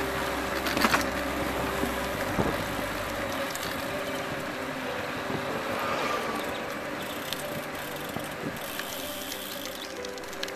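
Recumbent trike rolling along a paved path: steady wind and tyre noise on the microphone, with a few sharp mechanical clicks about a second in and again near two and a half seconds.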